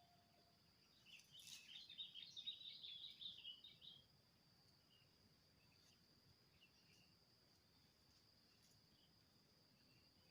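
Faint outdoor ambience with a steady high insect trill, like a cricket. About a second in, a bird gives a burst of rapid chattering calls for about three seconds.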